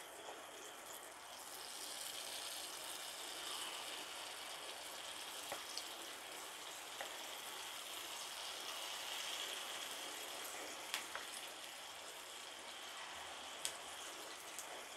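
Sweet appam batter sizzling as it is ladled into hot oil in the wells of an appam pan. The frying hiss builds about two seconds in as more wells fill, with a few light clicks along the way.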